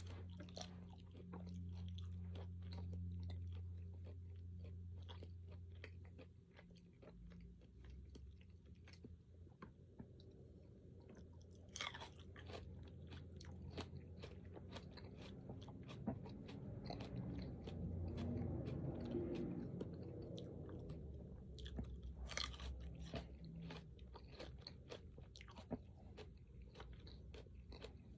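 Close-miked person chewing crunchy food, with many small wet clicks and crackles. A louder stretch of chewing comes about two-thirds of the way through, and there are two sharper cracks, about 12 and 22 seconds in.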